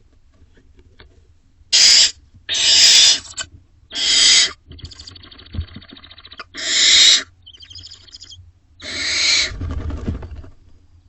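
Barn owlets in the nest box giving harsh hissing screeches, the begging calls of young barn owls: five loud, rasping bursts of about half a second each, with softer buzzing and chittering calls between them.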